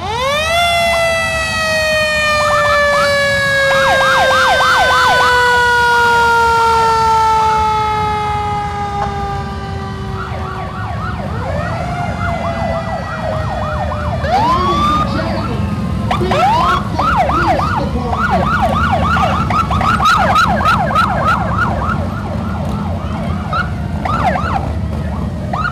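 Emergency sirens from a fire engine and a line of police motorcycles passing slowly. A fire engine's siren jumps up in pitch and then winds slowly down over about ten seconds. The motorcycles' sirens give short rising yelps a few times a second over a steady engine rumble.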